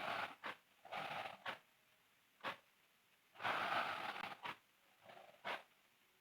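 A sleeping girl snoring: uneven breathy, rasping breaths, with short sharp clicks about once a second in between.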